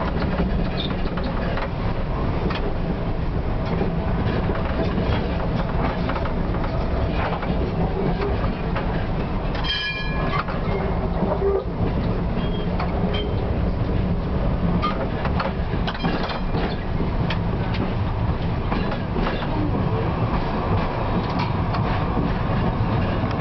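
TW6000 tram running along its track, heard from inside the driver's cab: a steady rumble of motors and wheels with scattered rail clicks. About ten seconds in there is a short high ringing tone.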